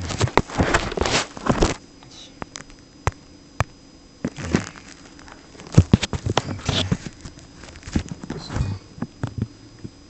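Camera handling noise: scraping rustles and a string of clicks and knocks as the camera is moved about and set in place, busiest in the first two seconds and again from about four to seven seconds in.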